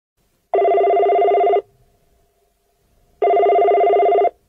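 Telephone ringing twice, each ring about a second long with a fast warbling trill, the two rings about a second and a half apart.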